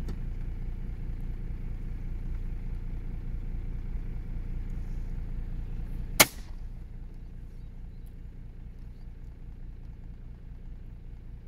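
A single shotgun shot about six seconds in, fired out of the side window of the Land Cruiser, at waterfowl. Throughout, the vehicle's engine idles with a steady low rumble.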